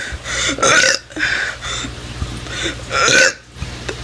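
A teenage boy burping over and over, a string of short burps with the loudest about a second in and again near the end.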